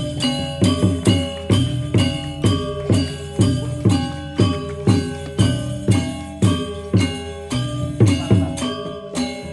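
Balinese gamelan music: bronze metallophones and gongs ringing at many steady pitches over a drum beat struck a little faster than once a second.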